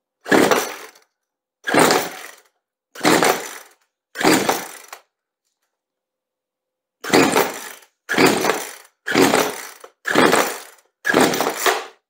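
Recoil starter of a Poulan two-stroke chainsaw pulled nine times: four pulls, a pause of about two seconds, then five more, each a short whirr of rope and cranking engine that fades out. The engine, primed with fresh fuel, never fires.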